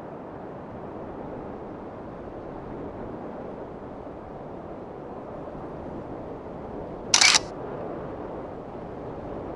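A single sharp camera shutter click about seven seconds in, over a steady rushing noise.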